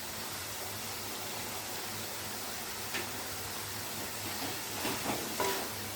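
Bottle gourd pieces cooking in oil in a pan, giving a steady sizzling hiss, with a light click about three seconds in and a few soft knocks near the end.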